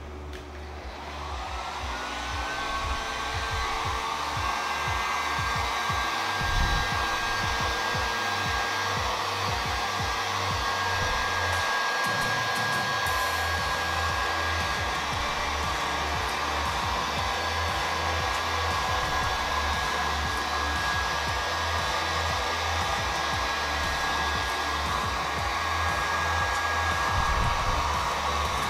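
Electric heat gun starting up and running steadily, its motor whine rising in pitch over the first couple of seconds and then holding, as hot air is blown over wet epoxy resin to pop bubbles and soften the marble veining.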